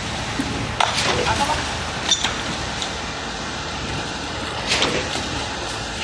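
Concrete pump running steadily, with a few sharp metallic clanks about one, two and five seconds in.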